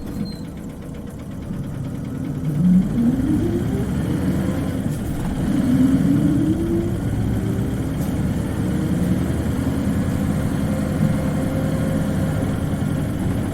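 Isuzu Cubic KC-LV380N city bus engine accelerating, heard from inside the bus: a steady rumble with a whine that rises in pitch twice, about two and a half seconds in and again around five to seven seconds, then settles into steady running. The high-pitched note on acceleration is this bus's distinctive engine sound.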